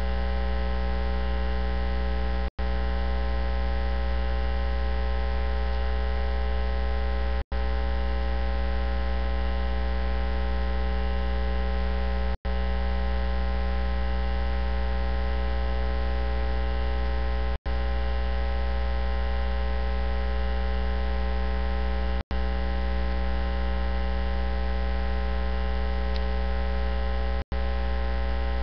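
Loud, steady electrical mains hum with many overtones, broken by a brief dropout to silence about every five seconds. No voice comes through: the hum fills the audio feed in place of the sermon, a fault in the recording or stream.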